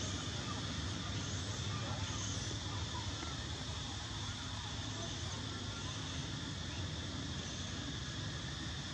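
Steady outdoor background noise: a constant low rumble with a hiss, and faint voices mixed in. No monkey calls stand out.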